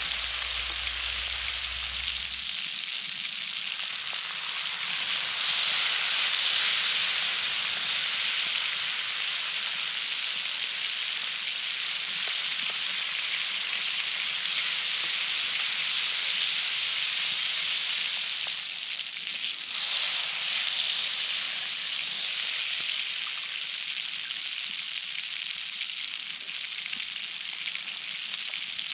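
Chopped onions frying and sizzling in a wide steel pan over a campfire, stirred with a wooden spatula. The sizzle swells louder about five seconds in, dips briefly near nineteen seconds, then rises again.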